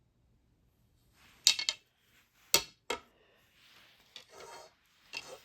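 Takedown bow limbs being handled and set against each other: a few sharp clacks, the loudest about a second and a half and two and a half seconds in, with softer rubbing and scraping between them.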